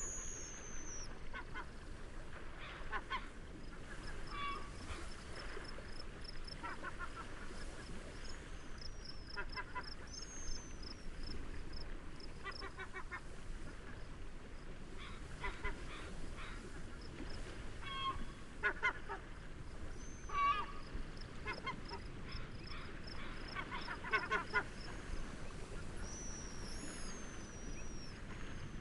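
Seaside nature ambience: a steady wash of wind and waves, with repeated series of honking bird calls every few seconds and higher, falling chirps of small birds. A faint, even cricket chirping runs through the first half.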